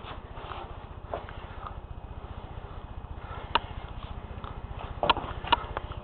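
Wooden model sawmill's mechanism running: a low steady hum with a few sharp wooden clicks, one about three and a half seconds in and two close together near the end.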